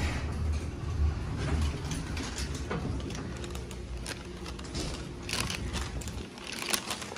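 Elevator doors sliding open over the low hum of the car, which fades out, then footsteps and movement along a hallway with a few sharp clicks.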